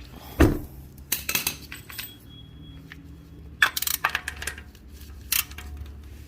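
A dull bump about half a second in, then several short bursts of light metallic clinking and clattering, as of small metal tools or parts being handled.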